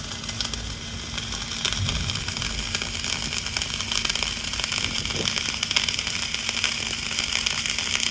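Dual-shield flux-core welding arc burning steadily: a continuous crackling sizzle with fine popping spatter as the bead is run.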